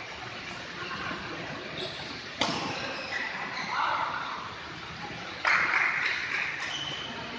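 Badminton hall with a steady background hiss. A single sharp racket-on-shuttlecock hit comes about two and a half seconds in, then a sudden louder burst of noise about five and a half seconds in that fades over the next second or so.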